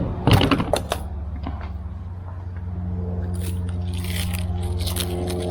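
Rustling and crackling of a large printed plastic sheet of one-way vision window film being handled and lifted against a van's rear window. There is a cluster of sharp crinkles in the first second, then more scattered crackling over a steady low hum.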